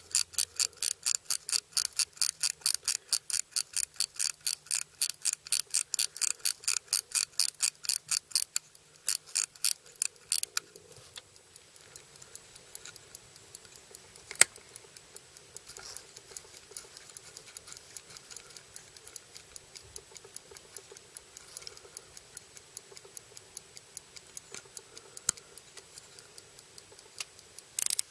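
Movement of a 1930s Kienzle pocket watch clicking: a run of loud, even clicks about five a second for the first eight seconds or so, then much fainter regular ticking, with one sharp click about halfway through and loud clicks again near the end.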